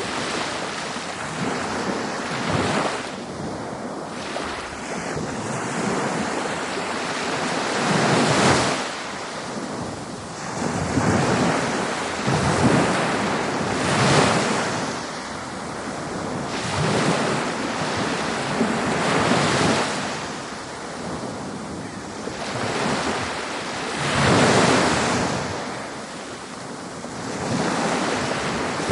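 Ocean waves breaking on a beach, a steady wash of surf that swells every few seconds as each wave comes in.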